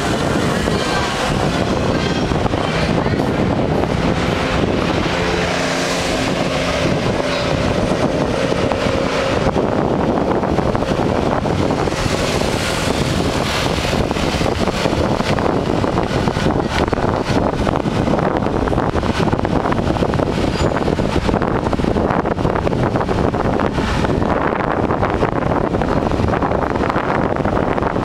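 Wind buffeting the microphone over the steady engine and road noise of a vehicle riding through street traffic, with a few faint steady tones about five to nine seconds in.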